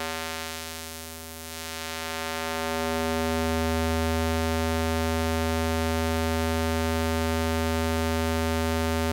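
Square wave from a Eurorack synthesizer oscillator, played through a high-pass filter and held on one low pitch. It dips in level about a second in while the filter knob is turned, then swells back and holds steady.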